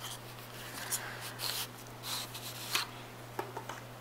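A white paperboard perfume box being worked open by hand: a few faint, scattered scrapes and taps of the cardboard flap and sleeve.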